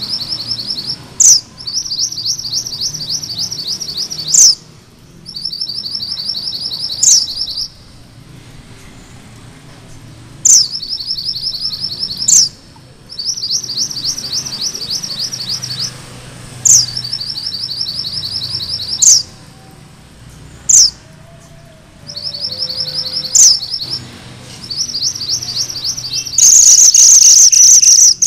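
Male minivet (mantenan gunung merah) singing: repeated rolling trills of fast, high, evenly spaced notes, each a second or two long, broken by sharp upswept whistles that are the loudest notes. Near the end a louder, higher, unbroken trill sets in.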